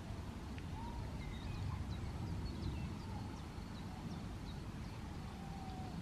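Wind rumbling on the microphone, with faint bird chirps in the background between about one and five seconds in.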